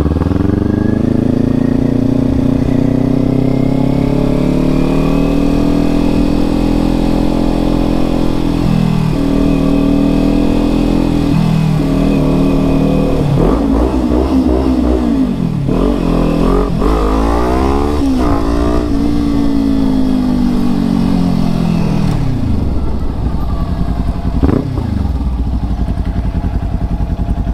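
2023 Kawasaki Ninja motorcycle engine running under way, its pitch climbing as it accelerates, dropping back at each gear change and falling away as it slows several times, with wind rumble underneath.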